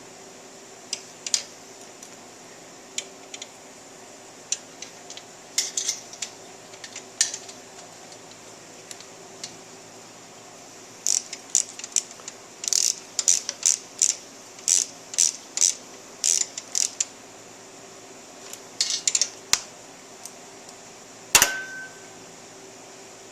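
Hand ratchet clicking in short runs as bolts are run down, with a long run of rapid clicks in the middle. A single louder metallic clank comes near the end.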